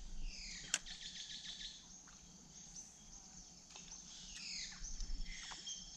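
Rainforest birds calling with quick, falling whistled notes, in one cluster near the start and another in the second half, over a steady high insect drone. A single sharp click about three-quarters of a second in.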